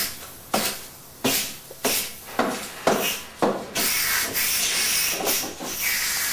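Aerosol spray-paint can hissing against a weatherboard wall: about six short sprays in the first three and a half seconds, then one long continuous spray.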